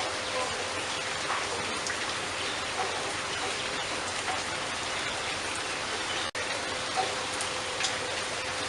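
Steady rain, an even hiss with scattered drop ticks, over a faint steady hum; the sound cuts out for an instant about six seconds in.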